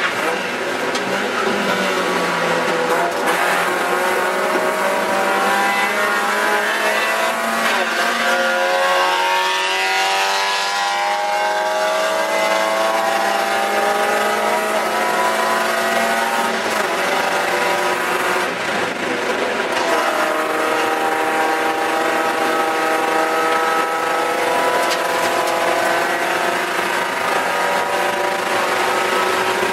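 Spec Miata race car's four-cylinder engine running hard at high revs, heard from inside the cockpit. About ten seconds in, the revs fall and climb again, and the engine note changes pitch again near twenty seconds.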